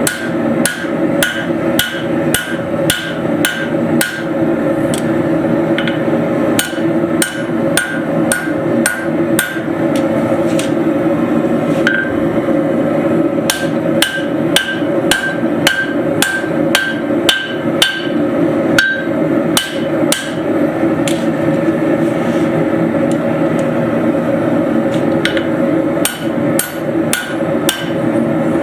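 Hand hammer striking hot flat bar steel on an anvil, about two blows a second in runs with short pauses, each blow ringing briefly. This is the forging of the stock for a pair of flat-stock tongs. A steady low roar runs underneath.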